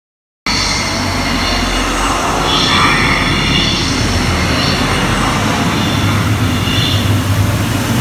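Amusement ride in motion: a loud, steady rushing rumble with high squealing tones from about two and a half seconds in and again near seven seconds.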